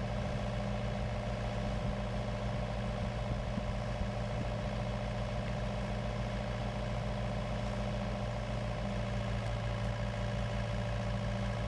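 An engine idling steadily, with an even low throb that does not change.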